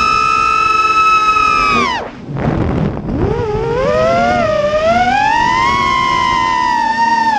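Quadcopter's Emax 2205 brushless motors and 5-inch props whining at high throttle. About two seconds in the pitch drops sharply as the throttle is cut, and a brief rush of air follows. From about three seconds the whine climbs steadily back up and holds as the throttle comes back on.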